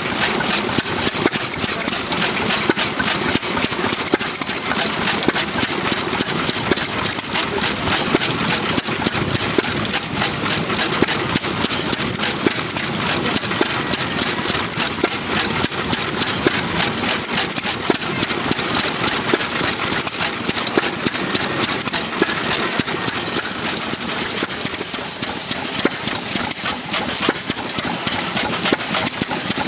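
Ruston Hornsby OK 5½ hp single-cylinder stationary engine running steadily, with a fast, even mechanical clatter.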